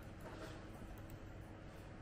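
Quiet room tone with a faint steady hum.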